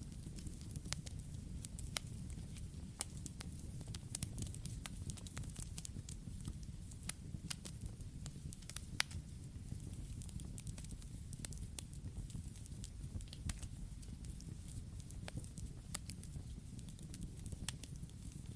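Campfire burning: a steady low rumble of flames with irregular sharp crackles and pops from the burning wood, several a second, one louder pop about halfway through.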